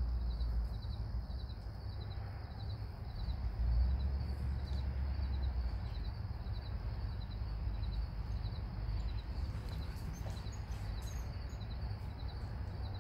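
Insects, likely crickets, chirping in a steady, evenly repeating high-pitched rhythm over a continuous low rumble.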